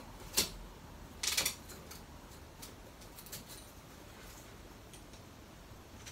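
Suitcase zip pulled in a short rasp about a second in, after a sharp click, followed by a few faint ticks and knocks of the case being handled.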